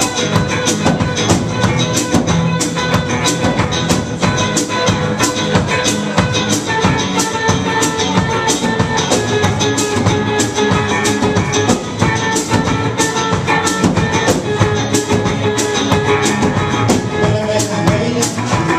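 Live band playing an instrumental number: strummed guitars over a drum kit's steady beat.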